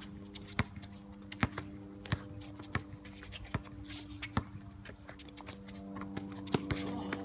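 Basketball dribbled on an outdoor hard court: a sharp bounce about every three-quarters of a second, over a steady low hum.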